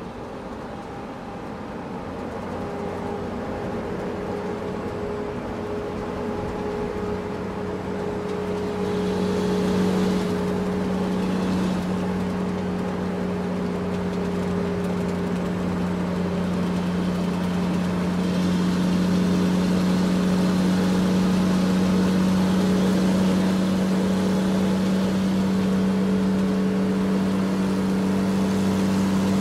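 A steady engine hum, growing louder over the first ten seconds and then holding level at one pitch.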